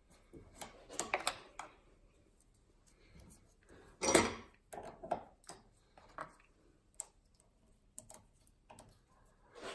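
Picking tools working in the keyway of an Era 5-lever padlock: small metal clicks and scrapes at irregular intervals as the levers are lifted, with a louder metallic clatter about four seconds in.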